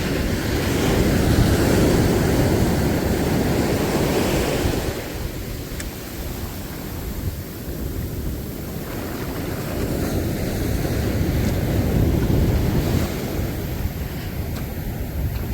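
Sea surf washing in and out, swelling twice, with wind buffeting the microphone.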